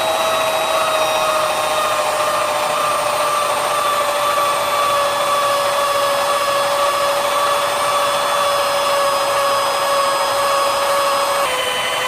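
A small electric power tool running steadily, its motor whine sagging slightly in pitch. The tone changes abruptly near the end.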